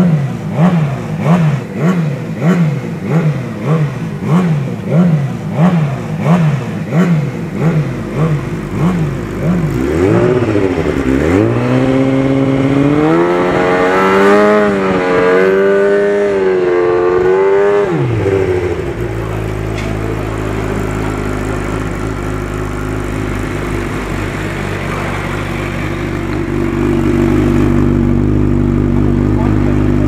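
An engine revving in quick repeated blips, somewhat under two a second, then a wavering note that sweeps up and down for several seconds before settling into a steady drone.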